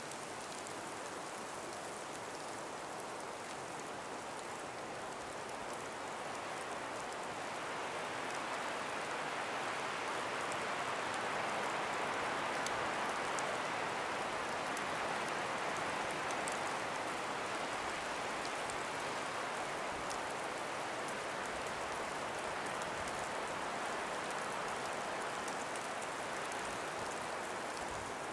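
A calm breeze moving through the ice- and snow-laden forest trees: a steady hiss that swells about eight seconds in and then eases slightly, with faint scattered ticks.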